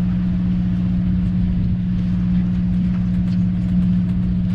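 A squid-fishing boat's engine running steadily, a constant low hum with no change in pitch.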